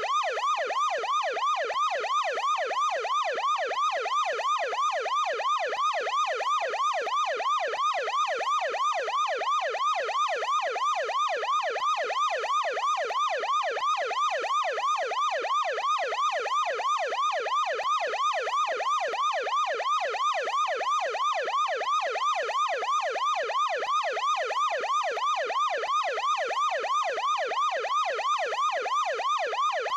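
Ambulance yelp siren: a fast, rising-and-falling electronic wail repeating about three times a second at an even, unchanging level.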